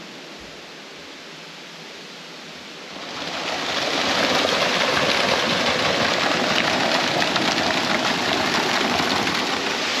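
Waterfall water rushing and splashing into a pool, coming in loud about three seconds in and holding steady. Before it there is only a faint steady hiss.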